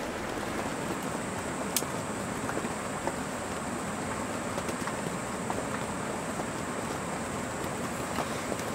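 Steady rain falling on a tent, heard from inside, with faint scattered drop ticks. There is one sharp click about two seconds in.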